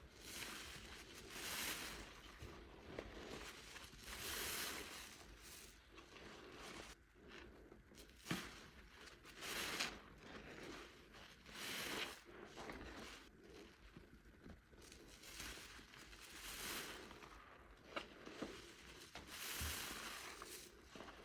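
Wet soap foam squelching and crackling in repeated swells every second or two, with a few sharp clicks in between.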